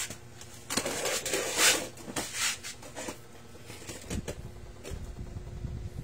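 Metallic clattering and scraping as a scooter's rear wheel is worked off its axle, with many sharp clicks, loudest about a second and a half in. Low rumbling knocks follow.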